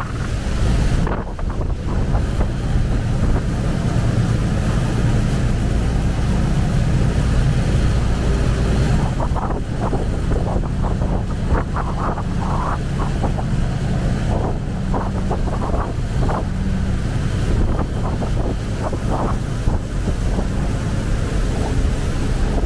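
Canal taxi boat under way, its engine running with a steady low drone, with water rushing past the hull and wind buffeting the microphone.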